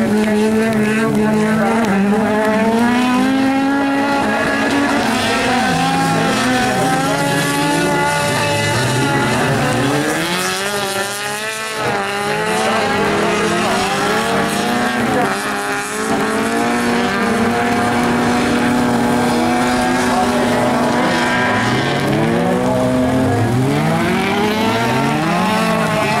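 Several autocross race cars' engines revving hard, overlapping, their pitch climbing through each gear and dropping at every shift.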